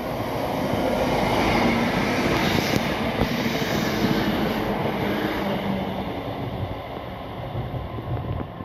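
Multiple-unit passenger train passing close by. Its wheel and rail noise swells over the first couple of seconds, stays loud for a few seconds, then fades as the train moves away.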